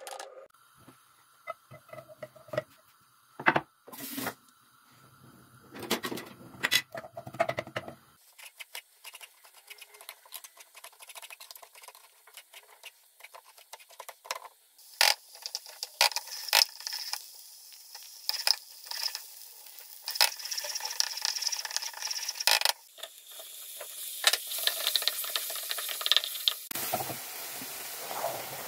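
Cooking sounds: a pan of food sizzling, with scattered clicks and knocks of utensils and cookware. The sizzle grows louder near the end.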